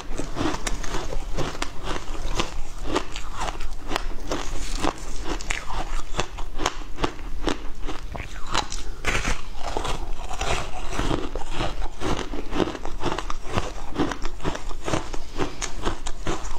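Passion fruit ice crunching and cracking close to the microphone as it is bitten and chewed: a dense, unbroken run of sharp cracks and crunches.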